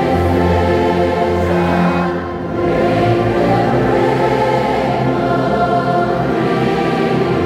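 Large church orchestra led by tubas, euphoniums, trombones and saxophones playing a hymn in long held chords, with a congregation singing along. The sound dips briefly about two seconds in, between phrases.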